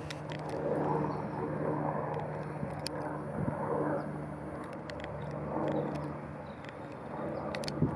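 Road traffic: a steady low engine hum under the noise of passing cars, which swells and fades every second or two, with scattered faint clicks.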